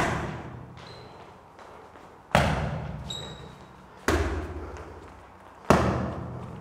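Boxing punches landing in a steady rhythm: four sharp smacks about one and a half to two seconds apart, each with a long echoing tail.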